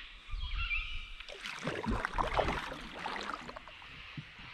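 Double-bladed paddle working through river water from a canoe, with splashing and gurgling loudest from about one to three and a half seconds in, over a low uneven rumble.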